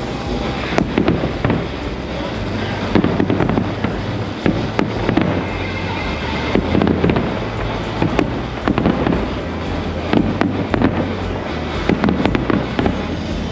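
Fireworks bursting and crackling in rapid, continuous volleys, with music playing alongside.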